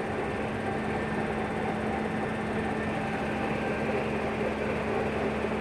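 Steady hum of running machinery, with a constant low tone under an even, unchanging noise.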